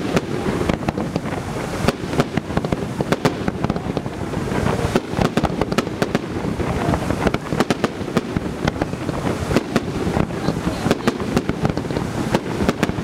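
Fireworks display: aerial shells bursting in a continuous barrage, a dense, rapid stream of bangs and crackles.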